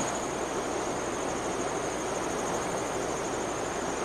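Steady even outdoor hiss with a thin, continuous high insect trill.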